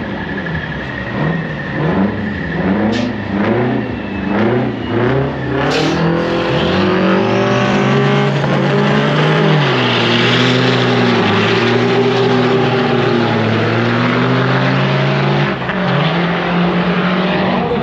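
Two semi trucks' diesel engines revving up and down at the start line, then launching at full throttle: the pitch climbs steadily, drops at a gear change and then holds steady as they pull away, with another short dip near the end at a further shift.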